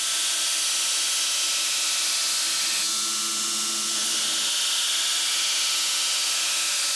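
2x72 belt grinder running with a steel knife blade pressed against the belt, roughing in the edge bevel at a steep angle: a steady, even grinding hiss over a constant motor tone.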